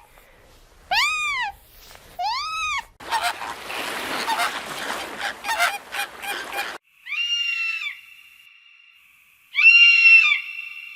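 Animal calls in separate clips: two loud honking calls that arch up and down in pitch, then a few seconds of noisy rustling, then two shorter high calls joined by a steady tone.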